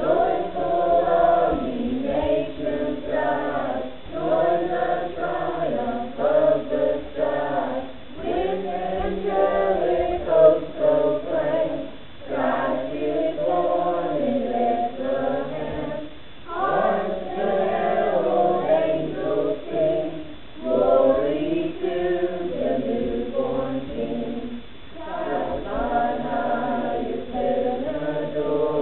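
A small choir of teenage voices, mostly girls, singing together in phrases of about four seconds with short pauses for breath between them.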